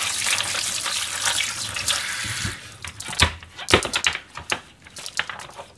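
Kitchen faucet running as hands are rinsed under it, stopping about two and a half seconds in. Then several sharp clicks and knocks of a plastic food container and its lid being handled on a cutting board.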